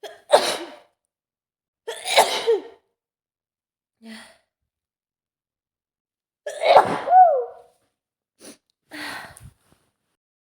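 A woman with a head cold sneezing three times, at about two- and four-second gaps. Some sneezes end in a short voiced tail that falls in pitch, and fainter short sounds come between and after them.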